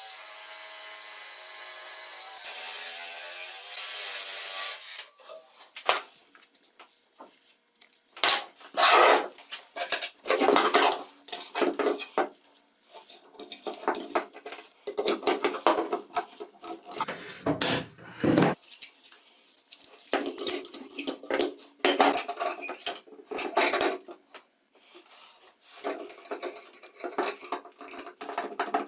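A small power tool runs steadily and cuts off about five seconds in. Then comes a long run of irregular hand-work noise: scraping and rubbing strokes with clinks of metal parts and tools.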